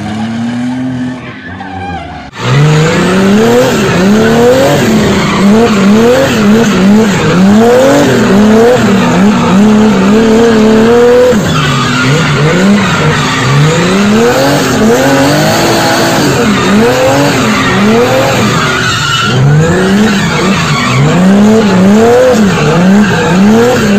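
Drift car's engine heard from inside the cabin, revving up and falling back over and over as the car slides, over continuous tyre squeal. It is quieter for about the first two seconds, then turns loud suddenly.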